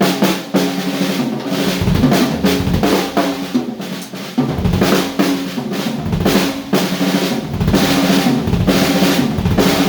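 Acoustic drum kit being played: rapid snare and bass drum hits with tom fills, the toms ringing on after each stroke.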